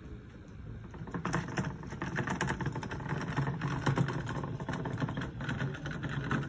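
Wheels of a rolling cooler rattling over hard dirt and gravel as it is pulled: a fast, irregular run of small clicks and knocks that picks up about a second in.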